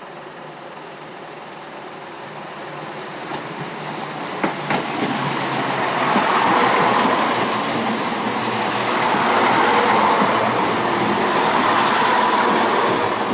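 Class 170 Turbostar diesel multiple unit approaching and then running along the platform, growing steadily louder over the first six seconds and staying loud. A few sharp clicks come about four to five seconds in, and a brief high, falling squeal comes a little past eight seconds.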